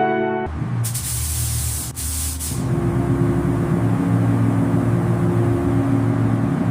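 Paint spray gun hissing loudly in a burst with a brief break, as the final coat goes on. After about two and a half seconds it gives way to a steady low drone with a few held tones.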